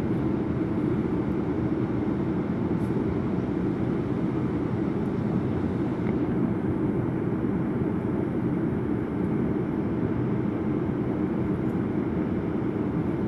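Passenger train running along the track, heard from inside the carriage as a steady rumble of wheels and running gear.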